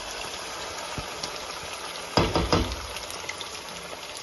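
Oil sizzling steadily in a pot of browned onions and frying crushed cumin as a thick vegetable mash goes into it. About two seconds in, a short cluster of loud knocks and scrapes as the mash is scraped from a plastic tub with a wooden spatula.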